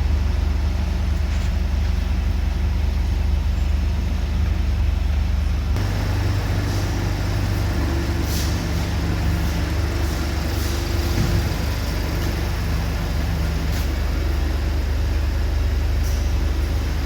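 A vehicle engine idling with a steady low hum; the sound shifts slightly about six seconds in.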